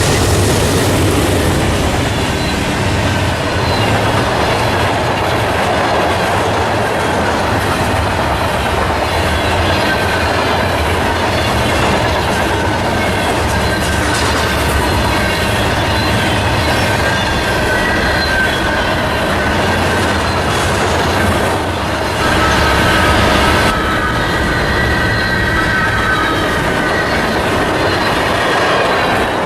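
Freight train rolling past, its cars' steel wheels on the rails making a steady loud rumble, with a thin high wheel squeal coming and going.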